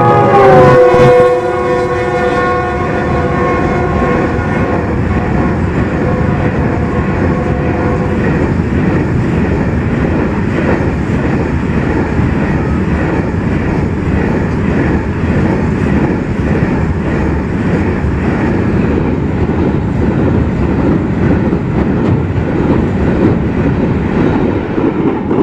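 A GE Evolution-series (GEU-40) diesel-electric locomotive's horn sounds as it passes, its chord dropping in pitch and fading within the first couple of seconds. Then a long train of loaded coal hopper wagons rolls past with steady wheel-on-rail clatter, tailing off near the end.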